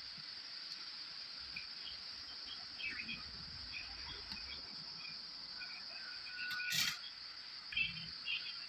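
Steady high-pitched chirring of insects in the background, with scattered short chirps, and a single sharp knock about two-thirds of the way through.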